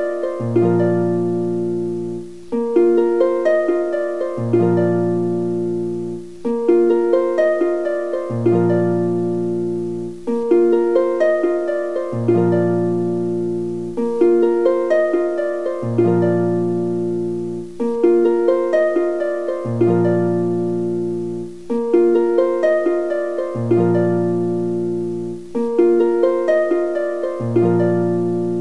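Background music: a plucked-string melody repeating the same short phrase about every four seconds, each note dying away quickly.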